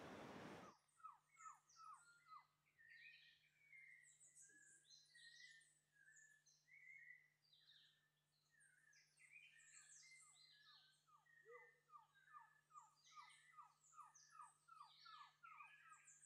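Several forest birds calling at once: runs of quick descending whistled notes, about three a second, under many higher chirps and trills. A hiss cuts off just under a second in, and a faint steady low hum runs beneath.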